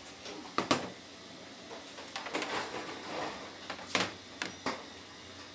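Ceramic plates of soba handled and set down on a stainless steel counter: a few sharp clinks and knocks, two close together under a second in and more around four seconds, with light handling noise between them.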